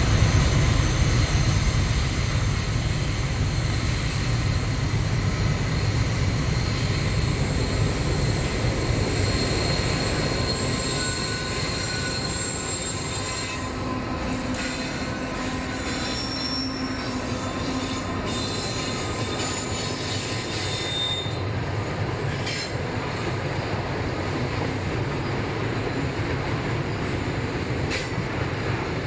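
NR class diesel-electric locomotives passing at the head of a steel train. The low engine rumble is strongest over the first ten seconds or so and then eases as the loaded steel wagons roll by with steady wheel squeal and a few clicks over the rail joints.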